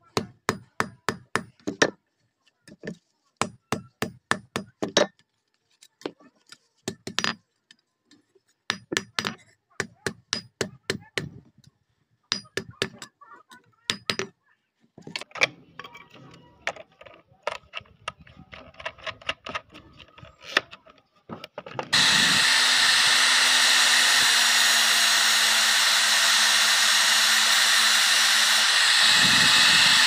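Hammer blows on steel on an anvil, in short runs of four to six strikes each, followed by lighter clicks and knocks of metal parts being handled. About 22 seconds in, an electric angle grinder with an abrasive disc starts abruptly and runs steadily and loudly.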